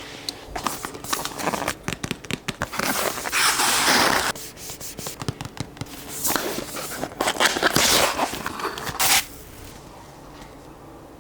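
Mechanical keyboard with full-metal keycaps being typed on: a run of quick keystroke clicks, with two stretches of very fast continuous typing, about three seconds in and again from about six to nine seconds in, after which the typing stops.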